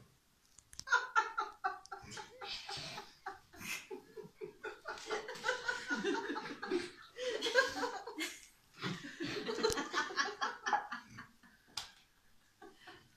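Laughter in long runs of quick repeated ha-ha pulses, lasting about ten seconds and dying away near the end.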